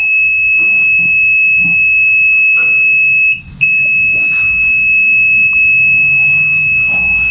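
Satellite finder meter's buzzer sounding a steady, high-pitched continuous tone that cuts out briefly about three and a half seconds in and comes straight back. The tone is the meter signalling that it is picking up the satellite while the dish is fine-tuned.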